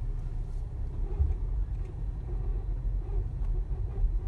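Audi A1 running with its engine warm, making a low, uneven noise that is definitely not a healthy sound.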